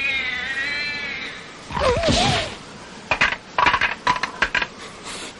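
A cat's long, wavering yowl, then a short cry with bending pitch and a rapid run of sharp cracks and knocks, like things breaking in a struggle.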